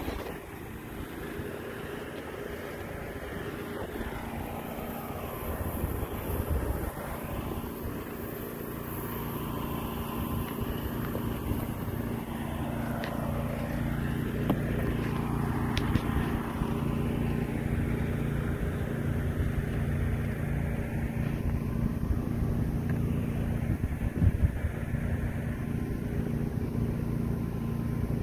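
A motor running steadily, giving a constant low hum, with rumble and rustle on the microphone and a few light knocks.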